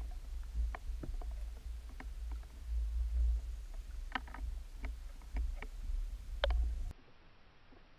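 Underwater ambience through an action camera's housing: a steady low rumble of moving water with scattered sharp clicks and ticks. It cuts off abruptly about seven seconds in.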